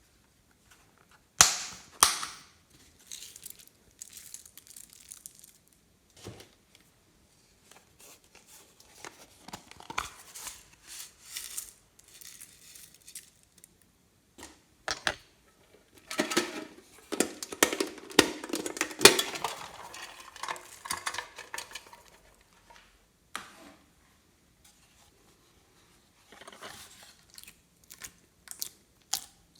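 Glossy slime being squished and worked by hand, making sticky pops and crackles in irregular bursts. Two loud pops come about one and a half and two seconds in, and a long, dense stretch of squishing and crackling follows past the middle.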